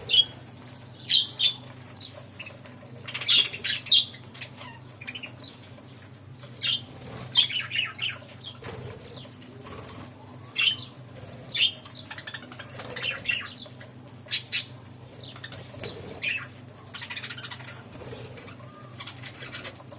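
A flock of budgerigars chirping and chattering in short, scattered calls, with a few sharp clicks and a steady low hum underneath.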